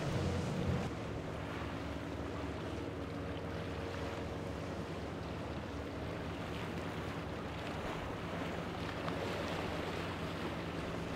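Powerboat outboard engines running at speed through choppy water, with splashing spray and wind on the microphone. Louder and deeper for about the first second, then a steady engine drone with several held tones.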